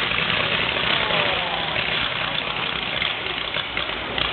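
Firework fountains hissing and crackling steadily as they spray sparks, with crowd chatter underneath.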